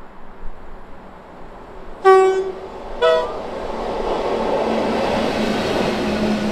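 Class 90 electric locomotive sounding its two-tone horn: a low note about two seconds in, then a shorter, higher note a second later. The locomotive, running light, then passes close by, and the sound of its wheels and running gear swells to a steady rumble with a faint low hum under it.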